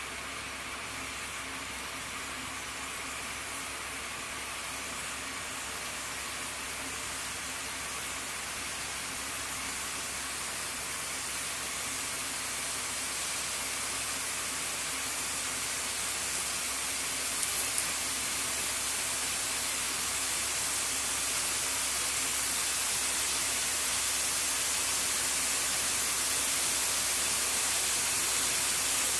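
Steady hiss with a faint low hum underneath, slowly growing louder, and a couple of small clicks about halfway through.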